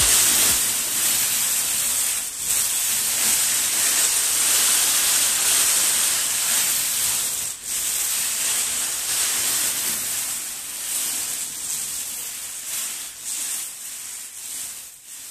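Hands sweeping and sifting through a large heap of small plastic medicine-vial caps: a dense rustling clatter with a few stronger swishes, fading out over the last few seconds.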